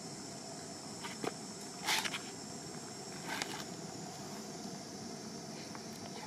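Steady high-pitched drone of insects in the surrounding trees, with three brief scuffing sounds about one, two and three and a half seconds in, the middle one the loudest.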